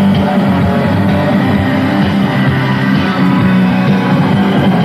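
Rock band playing an instrumental passage: electric guitar over bass and drums, loud and steady.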